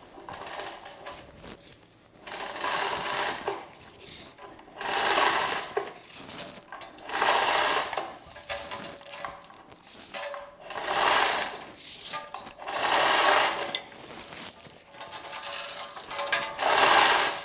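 Manual chain hoist worked by hand: the hand chain rattles through the hoist in about six pulls roughly two seconds apart, as it takes up the weight of a cast-iron milling-machine knee of about 418 pounds.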